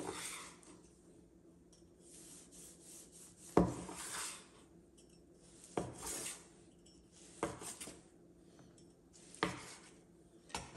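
A long slicing knife saws through a roasted stuffed chicken leg with a rasping sound. Each slice ends in a knock of the blade on a bamboo cutting board, about every two seconds.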